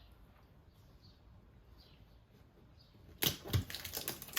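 Quiet room tone, then about three seconds in a sudden burst of crinkling and crackling as a shipping label sheet is handled and put on.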